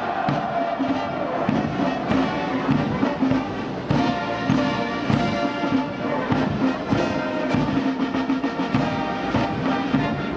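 Military brass band playing a march, with brass holding steady notes over a regular beat.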